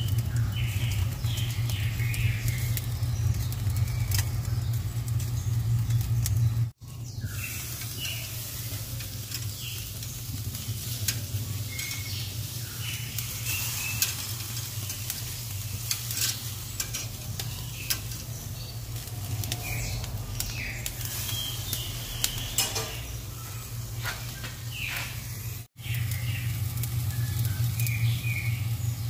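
Picanha steaks sizzling on a charcoal grill grate, fat crackling over the hot coals, over a steady low hum. The sound cuts out briefly twice.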